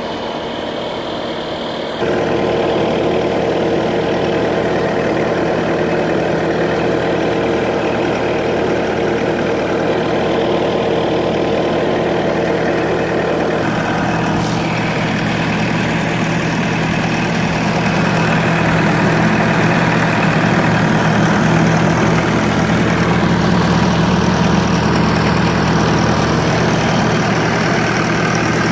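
Bobcat S650 skid steer's Kubota turbo-diesel engine running steadily at idle. It gets louder about two seconds in, and its tone shifts about halfway through.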